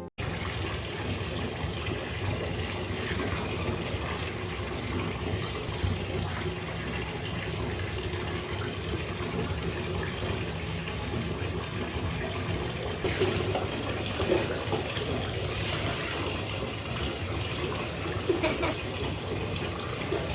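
Steady running water, like a tap filling a sink or tub, with some louder splashes in the second half.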